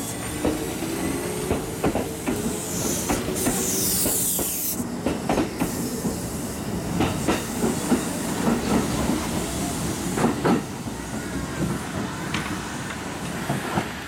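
Kintetsu electric commuter train running along the platform, its wheels clacking over rail joints in a run of sharp clicks, with a loud hiss about three seconds in.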